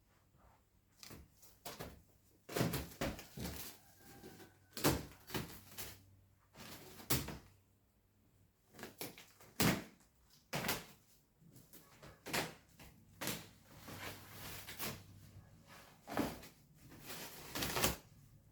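A series of irregular knocks and thuds, well over a dozen, with some rustling between them, as things are moved and handled.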